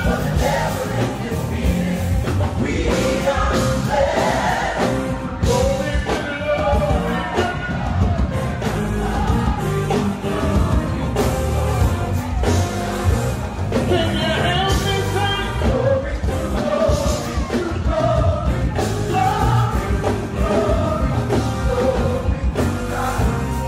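Live gospel band playing, with singing over drums and bass.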